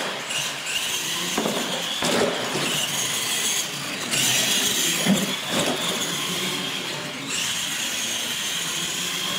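Radio-controlled monster trucks' electric motors whining at full throttle while they race across a concrete floor. The high whine holds steady and eases off briefly twice.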